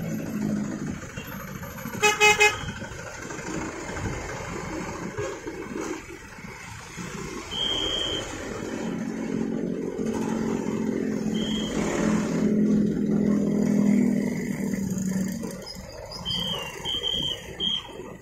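Road traffic crossing the railway: a vehicle horn gives three quick toots about two seconds in, and a truck engine runs past loudly from about nine to fifteen seconds as trucks and motorcycles pass.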